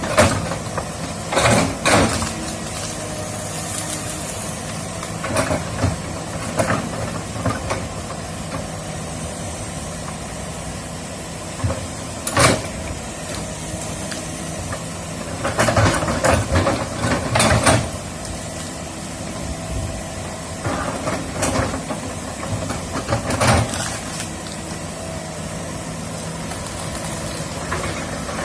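Komatsu hydraulic excavator's diesel engine running steadily, with short metallic clanks and knocks breaking in every few seconds and a longer run of clatter about halfway through.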